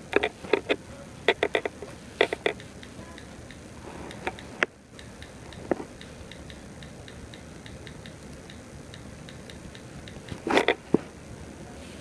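Typing on a tablet's on-screen keyboard: quick bursts of a few sharp key clicks, with a run of fainter, evenly spaced ticks in the middle and another burst of clicks near the end.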